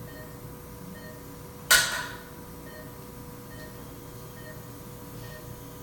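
Operating-room patient monitor beeping faintly and regularly, a little faster than once a second, over a steady equipment hum. About two seconds in there is one sudden sharp clatter, the loudest sound, fading within a fraction of a second.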